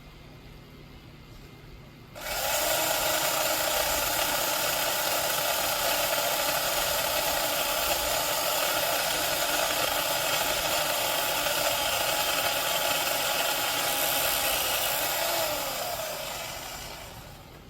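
Portland 14-inch electric chainsaw starting up about two seconds in and running at a steady high speed, then winding down with a falling pitch near the end.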